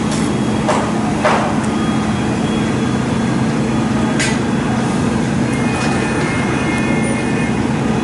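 Steady hum of a heavy engine running at a construction site, with a few sharp knocks of work on the structure: two in the first second and a half, another about four seconds in.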